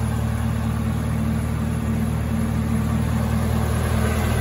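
The 2019 Chevrolet Camaro ZL1's supercharged 6.2-litre LT4 V8 idling steadily with the hood open.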